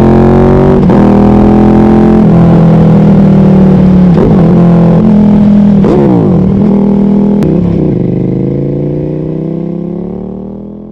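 KTM 1290 Super Duke R's 1301 cc V-twin engine, fitted with a Spark exhaust, running at high revs. The pitch drops sharply and climbs again several times, and the sound fades out near the end.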